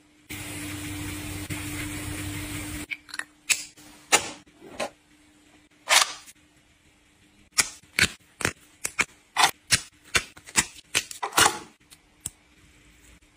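A steady hiss for the first couple of seconds, then a long run of sharp plastic clicks and taps as small plastic skincare ampoules are handled in their tray. The clicks come thickest near the end.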